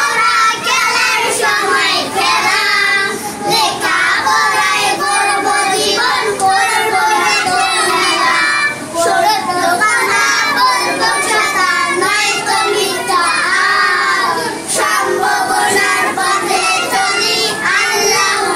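A group of young children singing together, unaccompanied, in continuous phrases with brief breaths between them.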